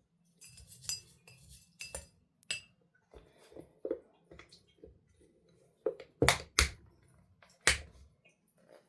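A measuring scoop clicking and clinking against a container as two scoops of dried rose petal and rose hip blend are measured out, a string of light, irregular taps with a few sharper knocks about two-thirds of the way in.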